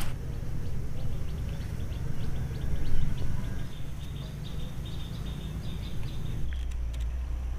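Small birds chirping in quick, high, repeated notes over a steady low rumble; the chirping stops about six and a half seconds in.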